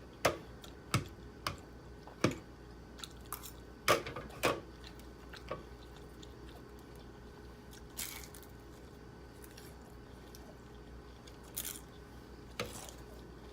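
Close-up eating sounds: a person chewing food, with sharp irregular crunches and mouth clicks spaced a second or more apart, loudest around two and four seconds in.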